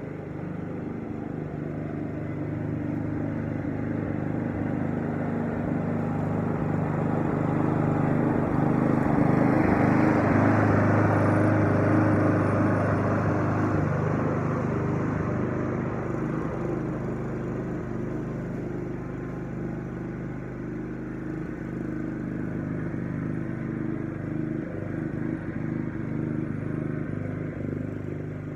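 Walk-behind lawn mower engine running steadily while it cuts grass, growing louder as the mower comes past close by about ten seconds in, then fading as it moves away.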